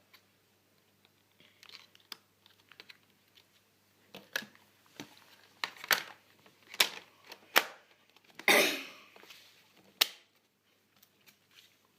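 Sharp clicks and snaps of an HP ProBook 4530s laptop's plastic parts being handled, with a short scraping slide about eight and a half seconds in. The first few seconds hold only faint ticks.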